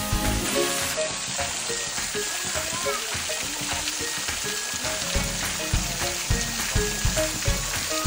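Thin waterfall spraying and splashing steadily onto flat rocks, a continuous hiss of falling water. Background music plays over it: short melodic notes and, from about five seconds in, a low beat about twice a second.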